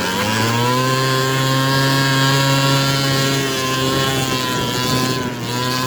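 70cc big-bore two-stroke scooter engine ridden hard: it revs up at the start and holds high, steady revs, easing off briefly about five seconds in.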